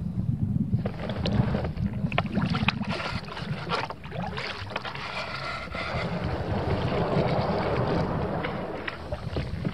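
Kayak paddle splashing in river water, starting about a second in, with wind rumbling on the microphone throughout.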